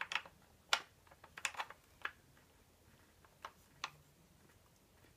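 A metal blade wrench clicking and clinking against the arbor bolt of a Bosch CS10 circular saw as it slips off the bolt: about nine sharp, separate clicks over the first four seconds, most of them in the first two.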